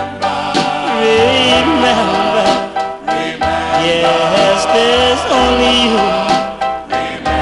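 1957 doo-wop ballad record playing: a wavering lead melody over the group's backing and a pulsing bass line.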